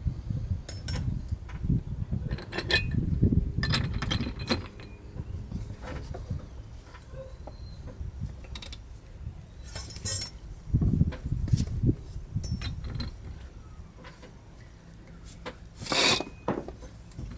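Large Barient 28 sailboat winch being cranked with a winch handle, its pawls and fittings clicking and clinking irregularly as a sheet is wound onto the drum and fed into a newly fitted Winchmate self-tailing jaw. A louder clack comes near the end.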